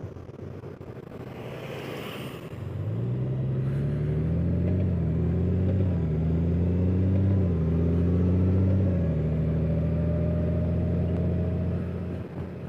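Honda Gold Wing's flat-six engine pulling away under acceleration, about three seconds in, rising in pitch and dropping back a few times as the dual-clutch transmission shifts up, then holding a steady note at cruise. Wind and road noise underneath throughout.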